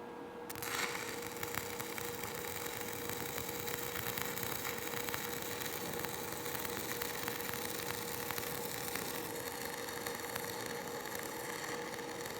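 Stick (shielded metal arc) welding: the arc strikes about half a second in, then crackles and sizzles steadily as the electrode lays the root pass of a groove weld. A steady hum runs underneath.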